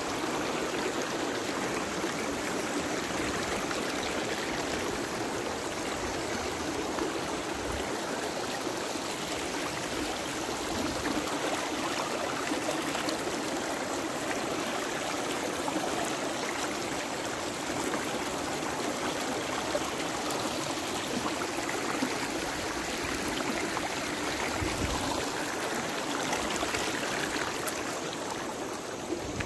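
Mountain river flowing: a steady rushing noise of running water.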